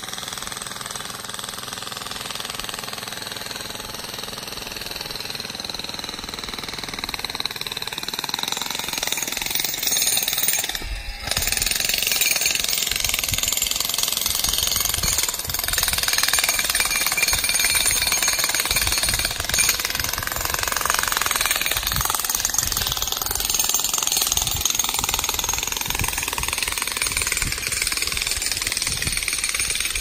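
Jackhammer pounding in a fast, continuous stream of impacts while breaking up rocky ground. It is softer and more distant at first, then close and louder from about eleven seconds in.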